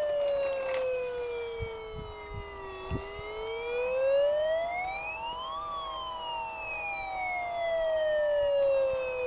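Battery-powered toy fire engine's electronic siren: a slow wail that falls, rises to a peak a little past halfway, then falls again. A few light clicks come in the first third.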